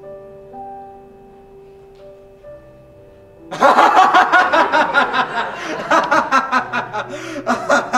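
Soft held music notes, then about three and a half seconds in a young man bursts out laughing loudly and keeps laughing in repeated bursts.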